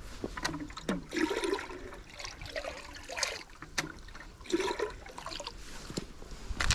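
Water splashing and pouring in irregular bursts as something is dipped and filled at the water's edge, with a sharper splash near the end.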